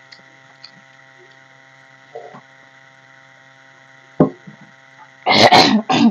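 Close-up eating sounds from hand-eating rice off a steel plate: a sharp click about four seconds in, then a loud, noisy burst of mouth and chewing sound near the end. A steady electrical hum runs underneath.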